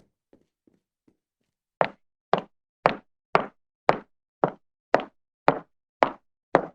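Footstep sound effect: a few faint steps trail off in the first second, then after a short pause a new series of loud, evenly paced single steps begins, about two a second.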